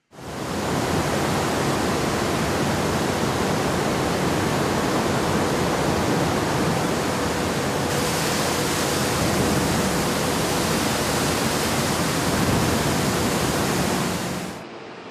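Loud, steady rushing noise of industrial equipment working red-hot metal. It starts abruptly, turns brighter and hissier about eight seconds in, and falls off sharply near the end.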